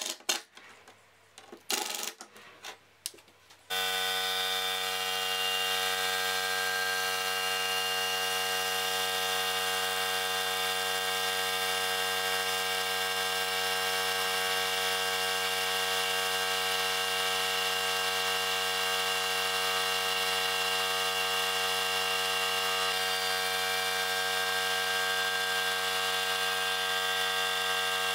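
A Ryobi cordless drill/driver runs in a few short bursts, driving hinge screws into plywood. About four seconds in, a paint sprayer's motor starts a steady, unchanging hum with many even overtones and runs on without change.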